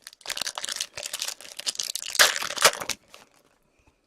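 Plastic-foil wrapper of a hockey card pack being torn open and crinkled in the hands, a dense crackling that is loudest a little past halfway and stops about three seconds in.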